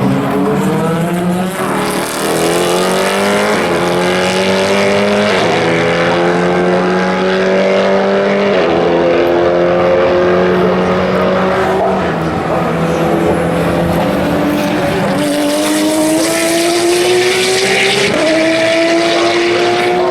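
Race car engine accelerating hard. Its pitch climbs through each gear and drops at every upshift, about seven times in a row.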